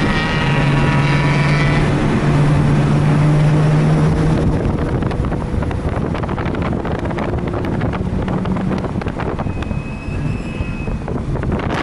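Mazda RX-8's two-rotor rotary engine running hard at steady high revs, then the note drops back about four and a half seconds in as the throttle lifts. Wind buffets the microphone throughout, rough and crackly once the engine eases off.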